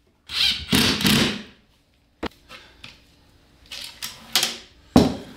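A wooden drawer box and metal soft-close drawer slides handled on a plywood workbench: two loud scrapes in the first second and a half, a sharp click just after two seconds, softer rustling, and a sharp knock about five seconds in.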